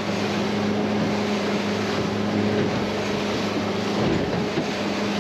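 Boat engine running steadily: a low, even hum under a steady hiss of wind and water.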